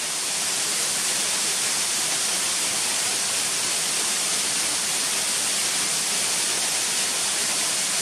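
Waterfall rushing: a steady, hissing roar of falling water with no change in level.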